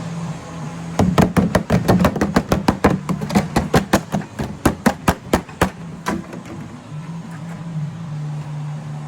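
A fast run of sharp knocks, about five or six a second for some five seconds, like rapid hammering or banging on metal, with a steady low hum underneath.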